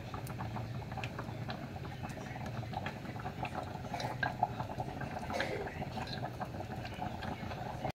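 Oil heating in an aluminium pot on a gas burner for a tadka: faint scattered ticks and crackles over a steady low hiss.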